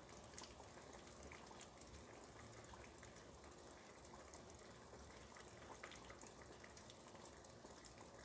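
Faint steady rain heard from indoors: an even patter with scattered soft ticks.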